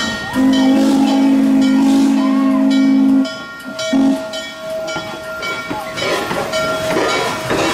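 Steam locomotive whistle blowing one long blast of about three seconds, cut off, then a short toot about a second later, followed by the noise of the locomotive running past.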